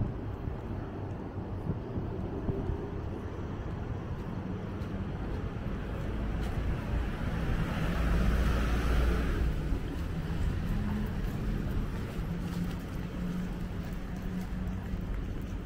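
City street traffic: a steady rumble of road vehicles, with one vehicle passing close and loudest about eight seconds in before fading.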